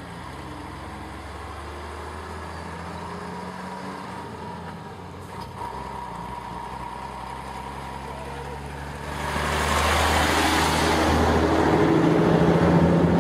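Heavy-haul truck engine running steadily, then much louder from about nine seconds in, joined by a broad rushing noise.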